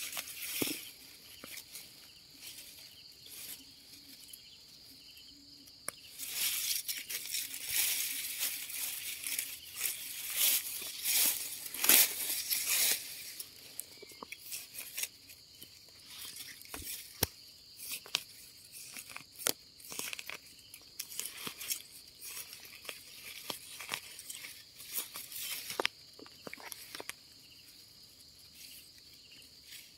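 Dry leaves and grass rustling and crackling as hands dig termite mushrooms out of the soil, busiest for several seconds starting about six seconds in and again briefly near the end. A steady, high-pitched insect drone runs underneath.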